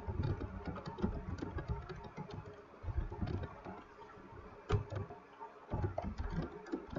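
Typing on a computer keyboard: a run of irregular key clicks over a low background rumble.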